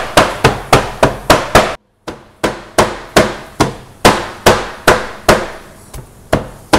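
Metal meat mallet pounding garlic, green chili and spices wrapped in plastic on a plastic cutting board to crush them for a ful dressing. The blows come steadily, about three a second, with a brief break about two seconds in.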